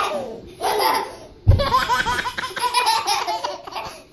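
Young children laughing hard in repeated bursts, with a single thump about a second and a half in.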